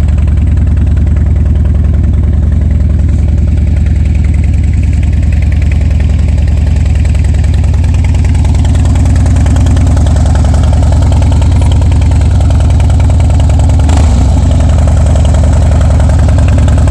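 Harley-Davidson V-twin motorcycle engine idling steadily, with one brief click about three-quarters of the way through.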